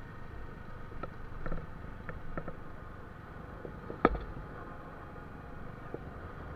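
Keeway Superlight motorcycle riding along, a steady run of engine and road noise picked up on the bike. A few light knocks, the sharpest about four seconds in.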